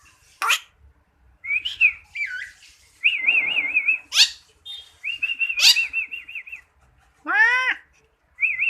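Pet black starling (jalak hitam) whistling in a string of separate calls. Quick sharp upward whistles are broken by a quavering whistle held about a second, heard twice. Near the end comes a lower, rougher call.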